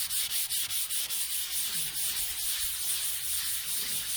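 400-grit wet-and-dry sandpaper rubbed dry by hand, flat under the palm, in a circular motion over primed automotive bodywork. It makes a steady scratchy hiss that pulses with each stroke, several strokes a second.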